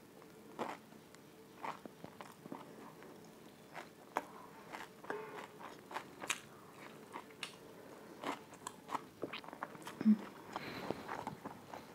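Close-miked chewing and biting of food: wet mouth clicks and smacks with a few crunches, irregular and continuous. One louder knock about ten seconds in.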